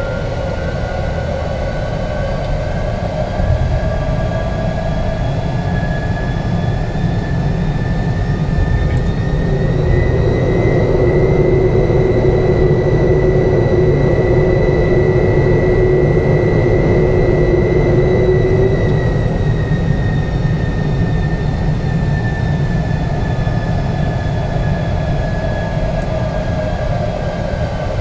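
Vickers VC10 jet engines running under a steady rumble, their whine climbing in pitch to a peak about halfway through, holding there, then easing back down.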